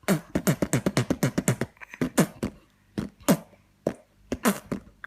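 Man beatboxing: a fast run of clicking percussive sounds for about the first second and a half, then slower, spaced hits.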